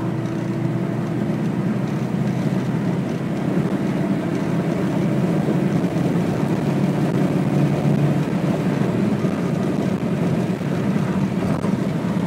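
Mercedes-Benz OM617 turbocharged five-cylinder diesel pulling at full throttle from about 50 mph, a steady engine note that grows slightly louder toward the last third.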